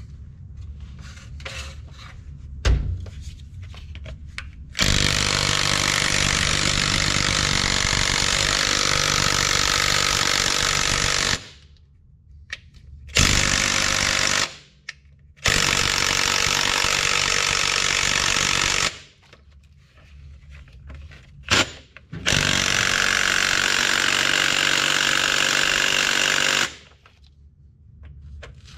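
Impact wrench running in four long bursts on the U-joint saddle bolts of a semi truck's driveshaft front yoke, the first lasting about six seconds, with a few short metal clanks in the gaps. The bolts are tighter than the back ones and are not coming loose.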